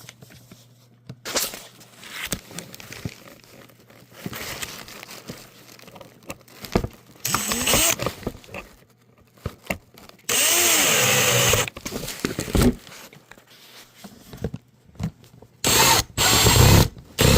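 Power drill driving Phillips screws into a new suitcase wheel's mounting, in several short runs: each whirs up in pitch and winds down as it stops. The longest run comes about halfway through and two more near the end, with handling rattles between.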